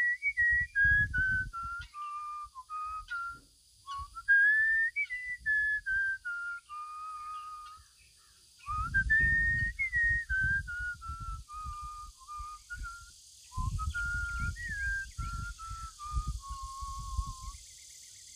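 A person whistling a slow tune in four phrases, each rising at its start and then stepping down in pitch, with a low irregular rumble beneath three of the phrases.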